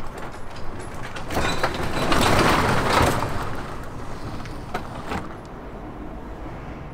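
Panelled garage door rolling down and closing. The noise swells about a second in and is loudest around two to three seconds in, with scattered clanks, then settles lower.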